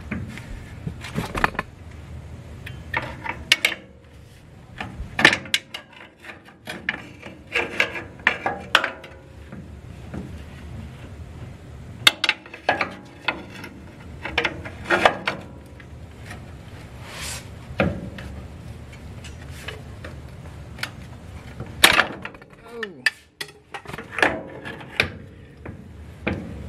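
Upper control arm of a 1989 Dodge D100 front suspension being worked into place on the frame by hand: irregular metal clunks, knocks and scrapes, some with a short ring.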